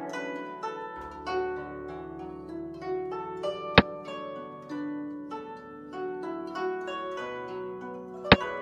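Plucked-string background music, with a sharp click twice, about four seconds in and near the end: the click sound effect of a Chinese chess piece being placed as each move is played on the board.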